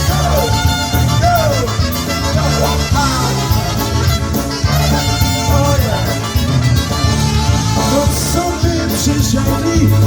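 Live polka band playing an instrumental break between sung verses, with a steady low beat throughout.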